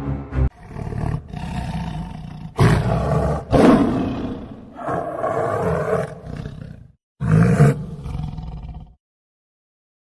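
Tiger growling and roaring over a piece of meat: a run of deep, rough growls, the loudest a few seconds in, that cuts off suddenly about a second before the end.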